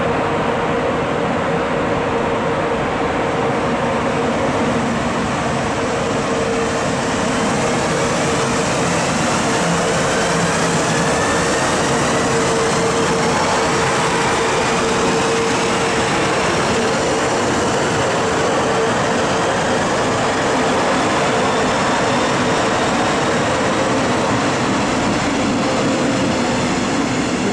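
Deutsche Bahn class 111 electric locomotive hauling double-deck coaches past at close range. Wheels run steadily on the rails under a steady hum, and several faint whines slowly rise in pitch as the train gathers speed.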